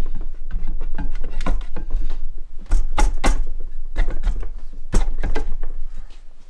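Steel brake back plate of a Massey Ferguson 35 rear axle knocking and scraping against the axle studs as it is slid on and turned by hand. It gives a run of sharp metallic clanks, the loudest about three and five seconds in, over a low thudding.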